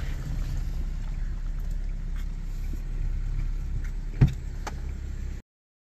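Car cabin noise while driving slowly over a rough, stony mountain road: a steady low engine and tyre rumble. About four seconds in there is one sharp knock, with a lighter click just after. The sound cuts off suddenly near the end.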